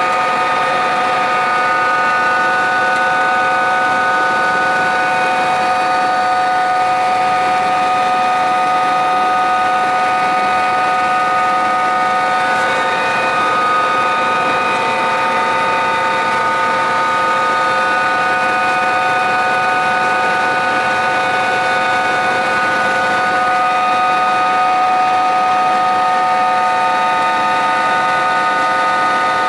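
Sikorsky S-76 helicopter's turbine engines and rotor running steadily on the pad, heard from inside the cabin: a constant whine made of several steady tones, with no change in pitch or level.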